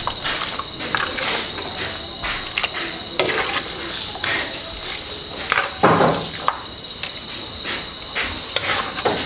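Crickets trilling in a steady chorus, with scattered knocks and scrapes of a plastic ladle against the bowl and pan as food is served; the loudest scrape comes about six seconds in.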